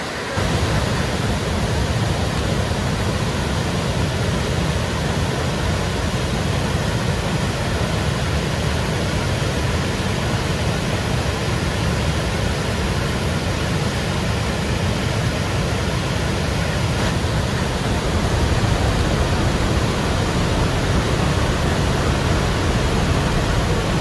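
River rapids rushing over rock ledges in a steady, deep, unbroken wash of water noise. It starts abruptly just after the beginning and swells slightly about three-quarters of the way through.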